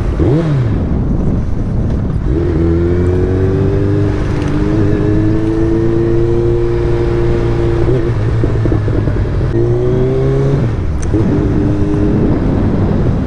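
Suzuki Hayabusa's inline-four engine heard from the rider's seat while riding at low speed. A quick throttle blip comes near the start, then a steady drone holds for several seconds. About ten seconds in the revs rise and break off suddenly, then settle to a steady note again.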